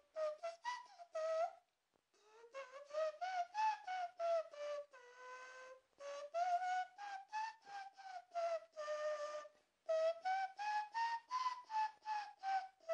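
Inward tooth whistle, a beatbox sound whistled on the in-breath with the teeth pushed forward in the 'tooth E' mouth position: one whistled note chopped into quick rhythmic pulses by the lips. Its pitch slides up and down, in four phrases with short breaks between them.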